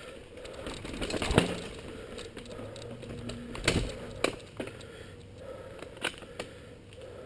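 Mountain bike rolling over a rocky dirt trail, rattling with a string of sharp knocks as the wheels hit stones and roots. The loudest knocks come about a second and a half in and again near four seconds.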